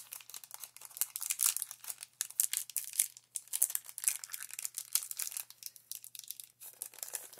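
Crinkling of a foil Pokémon booster pack wrapper being handled: a quick, irregular run of small crackles throughout.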